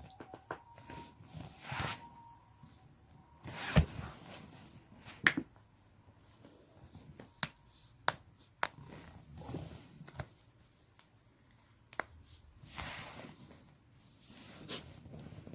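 Neck and back joints being cracked: about seven sharp, single cracks spread out unevenly, the loudest about four and five seconds in, with soft rustling between them.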